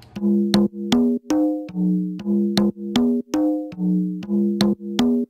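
Channel intro music: sustained chords over a steady beat of sharp percussive hits, about three a second.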